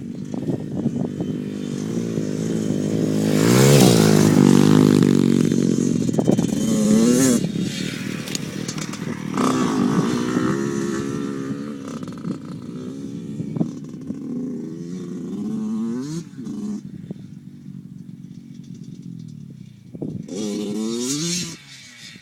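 Dirt bike engine revving up and down over and over as it is ridden. It is loudest about four seconds in, with a string of shorter throttle blips after that.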